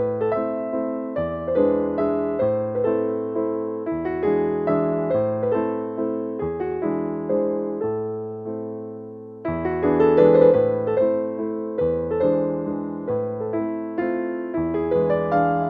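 Background piano music: a gentle melody of struck notes over low held bass notes, getting louder about ten seconds in.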